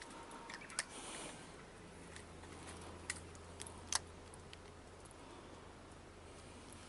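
A few faint sharp clicks and ticks, the loudest near the four-second mark, over a quiet background, with a low steady hum coming in about a second and a half in.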